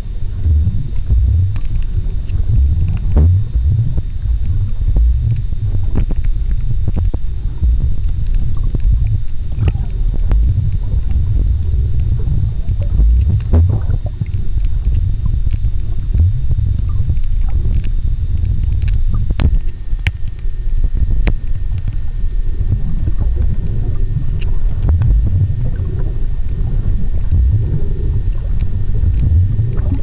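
Underwater recording through a camera's housing: a steady low rumble of moving water against the housing, with scattered sharp clicks, a few of them close together about two-thirds of the way through.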